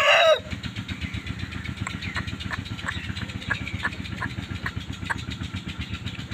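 The end of an Aseel rooster's crow cuts off in the first half second. After it comes a steady low pulsing rumble of an idling engine, with faint short high ticks about twice a second.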